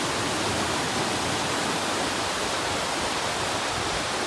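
Steady rush of churning, bubbling water where the ducks bathe, an even noise with no breaks.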